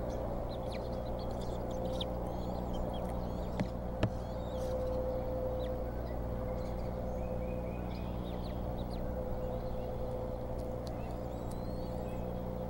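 Nest-camera microphone audio: a steady hum and hiss, with faint high chirps and short calls from birds throughout and a quick series of repeated calls near the end. Two sharp clicks sound about three and a half and four seconds in.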